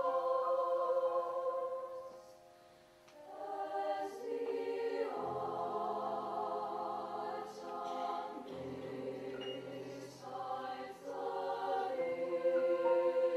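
Treble choir of girls' voices singing slow, sustained chords with piano accompaniment. The sound fades almost away about two seconds in, then the voices come back in and swell, with low piano notes joining.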